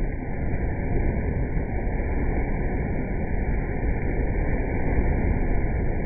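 Small Baltic Sea waves breaking over a rock and washing up a sandy beach: a steady rushing noise with a strong low rumble, growing a little louder.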